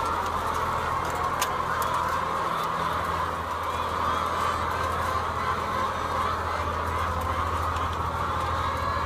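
Massed calling and clucking of a large flock of brown laying hens, a steady din without pause, over a steady low hum.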